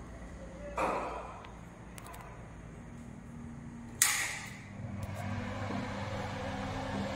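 Door sounds in a small tiled bathroom: a thump a little under a second in, then a sharper, louder knock about four seconds in. A steady low hum sets in just after the knock.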